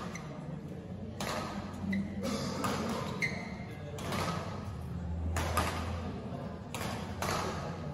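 Scattered thuds and taps echoing around a large badminton hall, coming at irregular moments, over a low steady hum.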